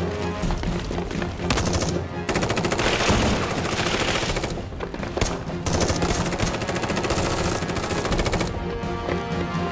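Rapid automatic gunfire in long bursts, heaviest from about a second and a half in, with a short lull near the middle. Background music plays under it.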